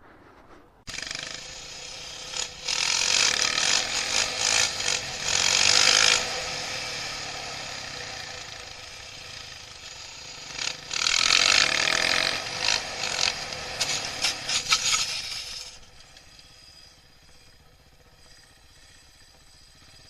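Motorcycle engine running hard with a buzzy, pulsing note, swelling in two loud spells as it is revved and accelerated. It drops back to a quieter, steady running sound for the last few seconds.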